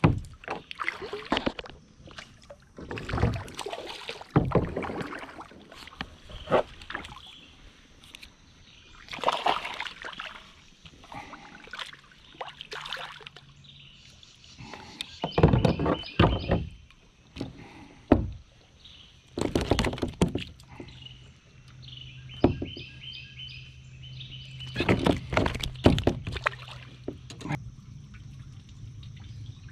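Kayak paddle strokes in river water: irregular splashes and sloshing against the hull, with drips between strokes.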